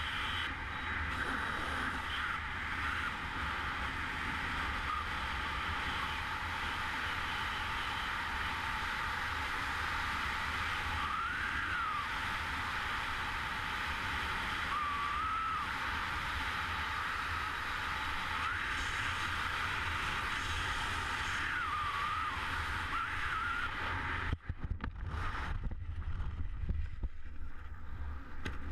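Steady rush of freefall airflow over a helmet camera's microphone during a wingsuit flight, with faint wavering whistles. About three-quarters of the way through it breaks into uneven gusts and flapping and the hiss thins as the parachute opens.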